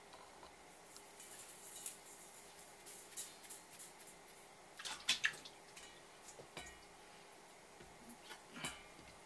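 Salt sprinkled by hand over raw crab pieces in a stainless steel bowl: a light, faint rattle of grains hitting the crab and the metal. A sharp double clink about five seconds in and another light knock near the end, small contacts with the bowl.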